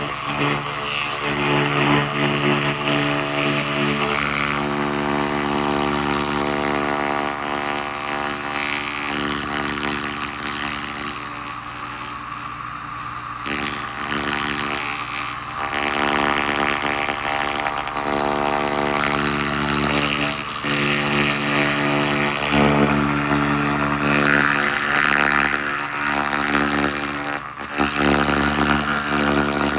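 SFX 2000 laser rust remover at work: a steady machine hum with a crackling hiss from the beam stripping rust, the hiss swelling and dropping as the beam is worked and briefly cut.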